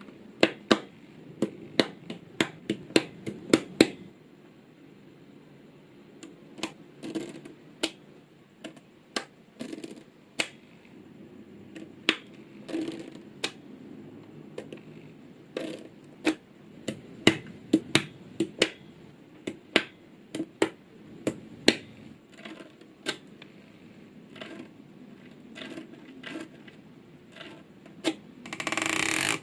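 Small neodymium magnetic balls clicking as they snap together while being placed one by one: a quick run of about ten sharp clicks in the first few seconds, then single clicks every second or so, with faint rustling of handling between them. A louder rattling, sliding noise comes right at the end.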